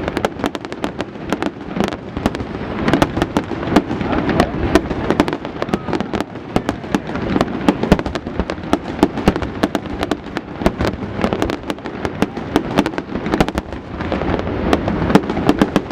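A fireworks display going off without a break: a dense barrage of sharp cracks and pops over a steady rumble of bangs.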